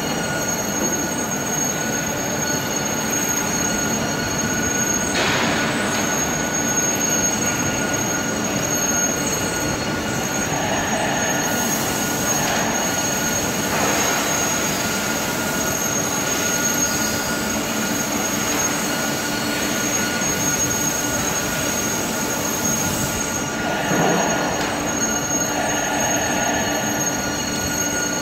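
Hydraulic mold upender (turnover machine) running as its table tilts up, a steady mechanical hum and whine with several high tones and a few brief louder noises.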